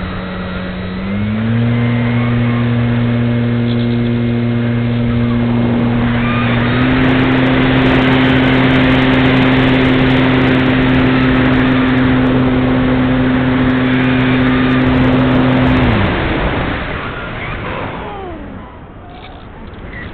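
Parkzone Radian Pro's electric motor and propeller running, heard from a wing-mounted camera: a steady hum that steps up in pitch about a second in and again about seven seconds in, then cuts off about sixteen seconds in. Wind rushes over the microphone through the middle and fades after the motor stops.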